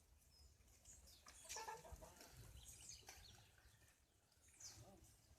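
Faint farmyard chickens clucking, with small birds chirping high and quick throughout; the loudest call comes about a second and a half in.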